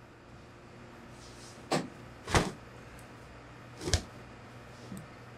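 Three short, sharp knocks, the first two about half a second apart and the third about a second and a half later, then a fainter one, over a faint steady low hum.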